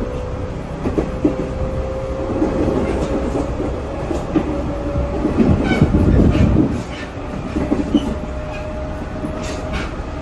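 311 series electric train running, heard from on board: a steady rumble of wheels on rail with a few rail-joint clacks, and a steady whine slowly rising in pitch.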